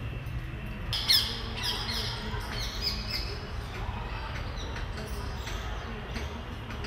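Birds squawking: a quick series of shrill, falling calls starting about a second in and thinning out after a few seconds, over a steady low hum.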